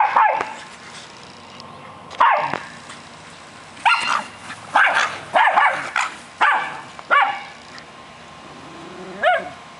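Small dogs barking at play: about nine short, sharp barks with gaps between them, most of them in a quick run from about four to seven seconds in.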